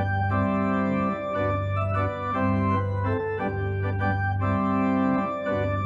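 Background music on an organ: slow, held chords that change about once a second.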